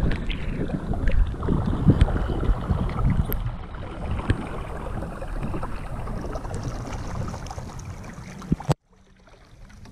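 Sea water sloshing and wind buffeting a camera held just above the surface: a steady rushing noise with low rumbles. It cuts out abruptly near the end, then returns quieter.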